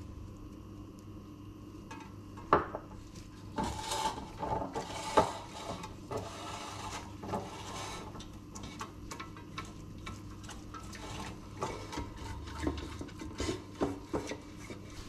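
A silicone pastry brush knocks and scrapes in a small ceramic bowl, with a few sharp knocks in the first five seconds. It then greases the inside of a cake pan in repeated rubbing strokes, with small clicks.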